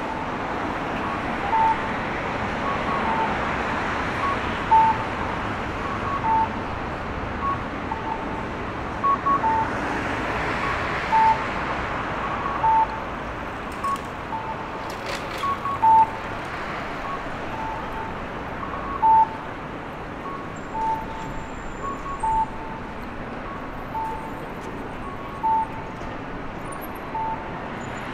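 Audible pedestrian crossing signal giving short electronic two-note beeps, a higher note then a lower one, repeating about every one and a half seconds. Steady city traffic noise runs underneath.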